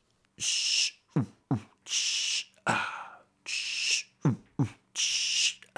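Human beatboxing: a slow beat of long hissing 'tss' snare sounds about every second and a half, with deep thumping kicks that drop in pitch between them, sometimes two in quick succession.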